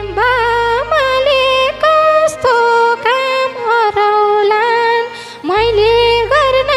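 Live Nepali dohori folk music: a single ornamented melody of held notes with bends and slides, between the sung verses.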